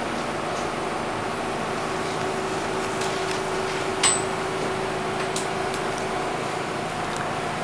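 Inside a Bombardier R62A subway car: the car's steady rumble and hum, with one sharp metallic clank about four seconds in that rings briefly.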